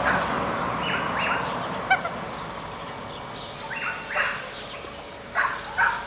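Ducks calling in short bursts, about a second in, around four seconds and twice more near the end.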